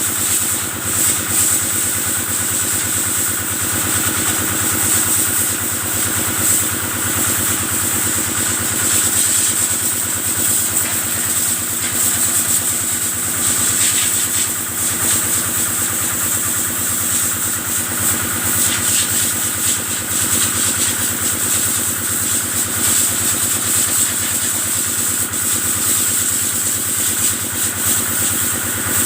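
Kubota engine driving a water pump, running steadily at a constant speed, with a steady high hiss of the water spray washing the cattle.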